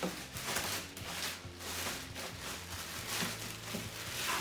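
Vacuum-cleaner packaging being unpacked and handled: a run of irregular rustles with a few small knocks.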